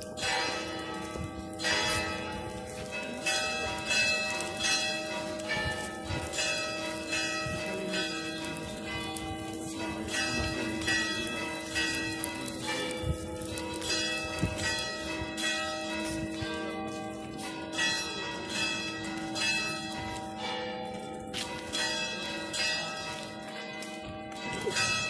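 Church bells pealing, struck again and again in quick succession, each stroke ringing on into the next.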